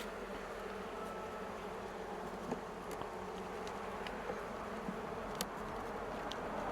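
Honeybee colony humming steadily around an open hive, with a few short sharp clicks.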